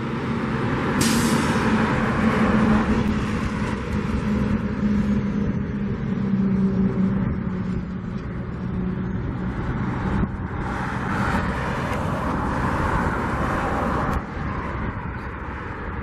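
A large engine runs with a steady hum and wind buffets the microphone. A short, sharp hiss comes about a second in, and a stretch of louder hiss runs in the latter half.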